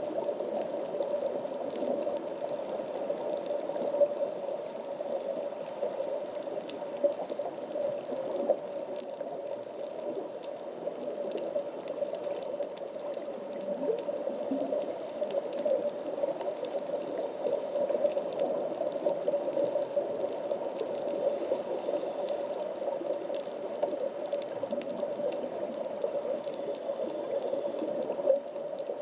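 Underwater sea ambience at about 15 m depth, heard through a 360° camera's waterproof housing: a steady, muffled wash of water noise with scattered faint clicks and a few sharper ticks.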